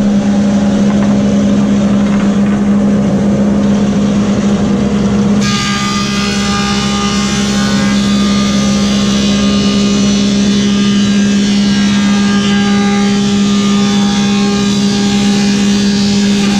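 Woodmaster 725 planer with a helical cutterhead running with a steady hum. About five seconds in, a higher multi-toned whine starts as a walnut or cherry board is planed through the cutterhead. It lasts until near the end.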